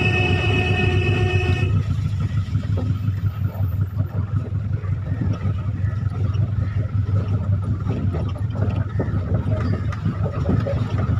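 Taxi engine and road noise heard from inside the moving cab, a steady rumble throughout. A vehicle horn sounds for about a second and a half at the start.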